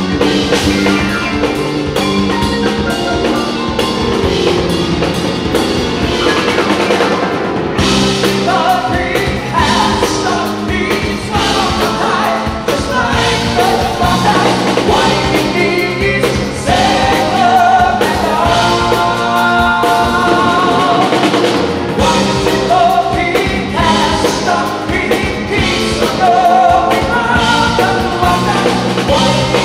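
Live rock band with drum kit, bass guitar and grand piano playing a prog-rock song. The first several seconds are instrumental with drums, then a male lead vocal comes in about eight seconds in and carries on over the band.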